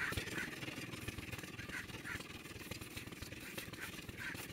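A motor running steadily in the background, a low even rumble.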